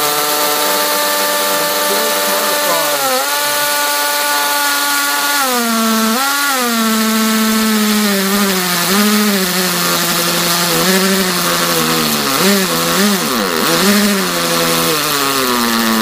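Cordless drill running continuously, boring through a plastic food tub. Its motor whine dips in pitch several times as the bit bites into the plastic and the motor slows under load, then recovers.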